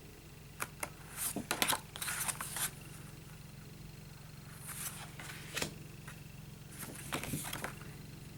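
Paper cards being handled and shuffled: short rustles and light clicks in three spells, over a steady low hum.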